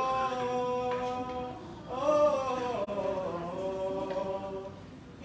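Armenian liturgical chant sung unaccompanied by male clergy. A long held note gives way about two seconds in to a new phrase that bends in pitch and trails off near the end.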